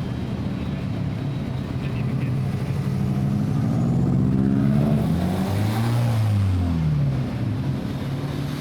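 Car engine running with a steady low hum. Its pitch climbs a few seconds in and then drops away again, loudest through the middle, as it revs or passes.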